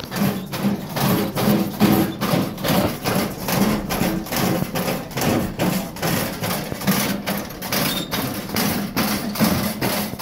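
Steady clanking thumps, about three a second, from the walking robot of a steampunk mechanical cart as its metal legs step along.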